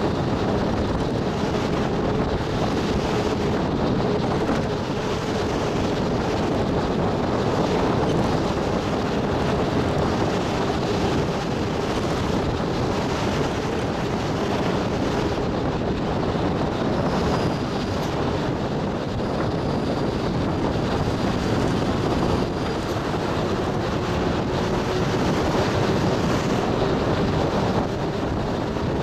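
Cabin noise of a moving bus: steady engine and road rumble with a faint, held whine.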